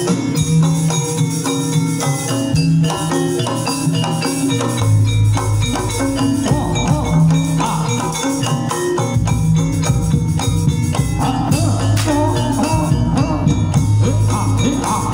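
Live jaranan gamelan music: metallophones strike a repeating note pattern over drums, with low sustained tones underneath.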